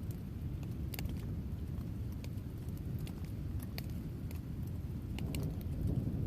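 Thunderstorm sounds: a low continuous rumble with scattered sharp raindrop ticks, the rumble swelling about five seconds in.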